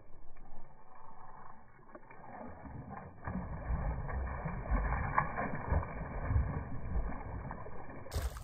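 A hooked largemouth bass thrashing and splashing at the water's surface, sounding muffled and dull. The sound grows louder and more uneven about three seconds in.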